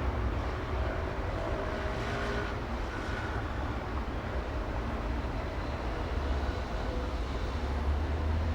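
City street traffic: a steady low rumble and hiss of passing vehicles, with a few faint, brief tones in the first three seconds.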